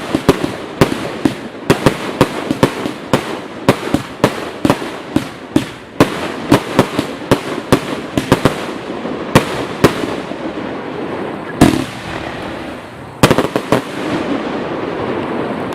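Total FX Caged Jaguar firework going off in a rapid run of sharp bangs, several a second, over a crackling hiss. The bangs thin out, with two last loud bangs near the end, and then the crackle dies away.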